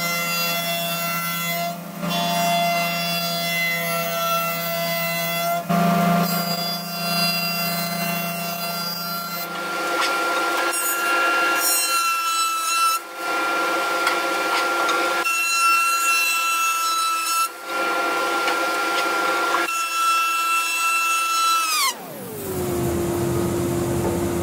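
A jointer and then a thickness planer milling a hardwood board. The motors whine steadily and the cutterheads shear wood in a series of passes, the sound changing between passes. Near the end a machine winds down, its pitch falling.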